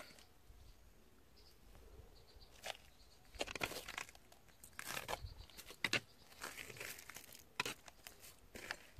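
Faint, irregular footsteps and rustling on gritty paving and grass, starting about three seconds in, with several short sharp scuffs.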